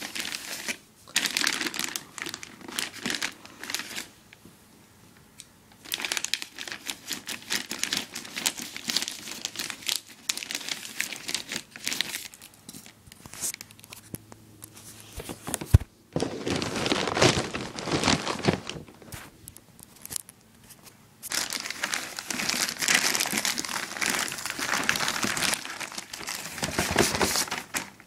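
White plastic mailer bag crinkling and rustling as hands handle it, in bursts with short pauses. There is a single sharp click about halfway through.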